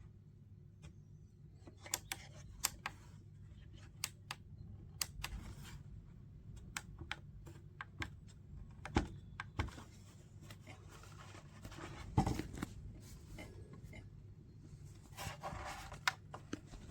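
Faint, irregular light clicks and taps, with a few louder knocks about nine and twelve seconds in, over a low steady hum.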